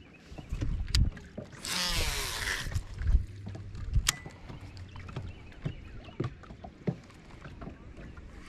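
Knocks and clicks of fishing gear being handled aboard a kayak, with low thumps on the hull. About two seconds in, a whirring hiss of about a second, as of line paying off a casting reel's spinning spool during a cast.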